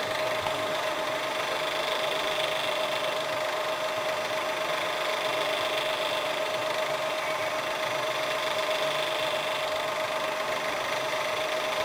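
Electric gear motor driving a rotary table, running steadily: an even mechanical whir with a constant whine.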